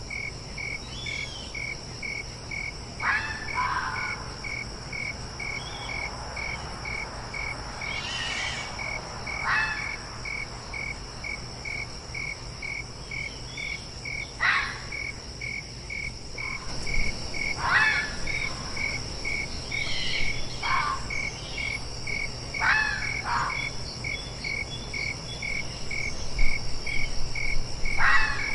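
A fox giving short, sharp barking calls at irregular intervals, about nine in all, over crickets chirping in a steady pulsing rhythm and a steady high insect drone.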